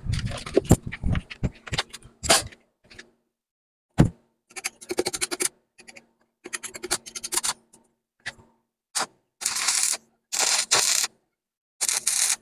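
Stick arc welding on a motorcycle's steel rear frame: a series of short crackling arc bursts, each under a second, as the electrode is struck and tacks are laid, with a faint hum under them. A few knocks and scrapes of handling come before the welding starts.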